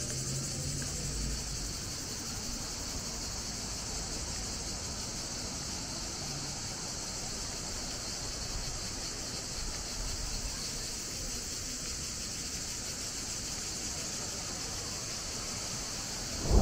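Chorus of cicadas buzzing in a steady, high, unbroken drone.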